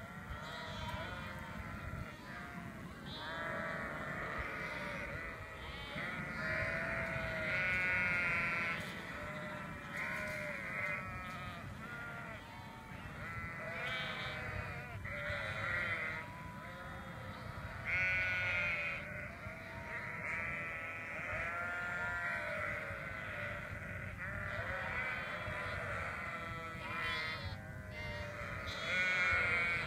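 A flock of sheep bleating, many calls overlapping one another, with louder bleats every few seconds and the loudest near the end.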